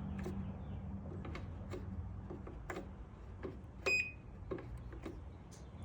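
Scattered small clicks and handling noise over a low steady hum that fades out about two seconds in, with one short high beep about four seconds in.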